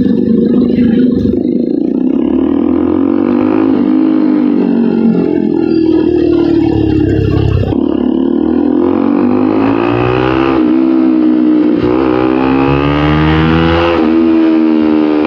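Bajaj Pulsar NS200 single-cylinder engine running through an SC Project aftermarket exhaust while riding, its pitch climbing and dropping several times as the bike accelerates and eases off.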